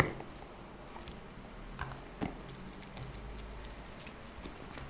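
Faint handling sounds of a small cardboard accessory box being held and opened: scattered light taps, clicks and rustles.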